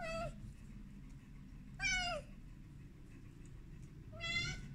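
Young kitten meowing three times, about two seconds apart: short, high-pitched meows, each dropping in pitch at the end.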